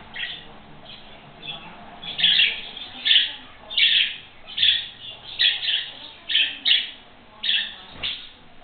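Young budgerigars giving a rapid string of short, high calls, about two a second, the loudest sounds in the room.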